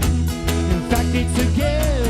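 Rock band playing: a steady drum beat over bass, with bending guitar or vocal lines.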